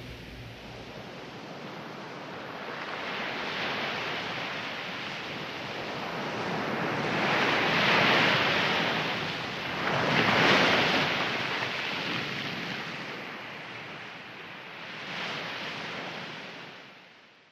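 Waves of surf washing in, swelling and ebbing several times, with the loudest surges about eight and ten seconds in, then fading out at the end.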